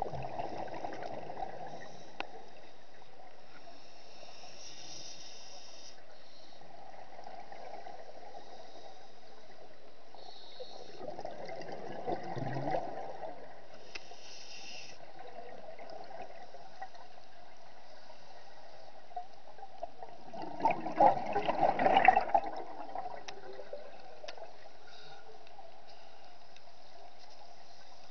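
Underwater recording with a steady hiss, broken three times by the bubbling gurgle of a scuba diver exhaling through a regulator; the longest and loudest burst of bubbles comes about three-quarters of the way through.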